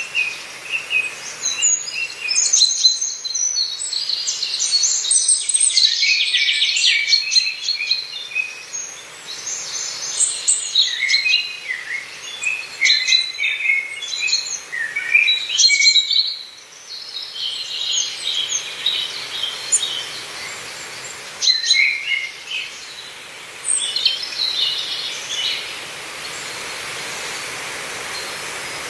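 Several songbirds singing and chirping at once, with many quick overlapping notes and trills. The song thins out near the end, leaving a steady soft hiss.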